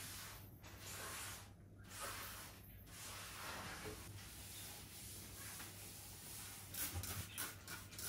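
Floor being swept: soft, repeated swishing strokes over the floor, with a few light knocks and clicks near the end.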